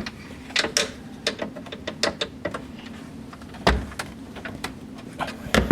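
Irregular light clicks and knocks over a steady low hum, with a heavier thump a little past halfway and another near the end.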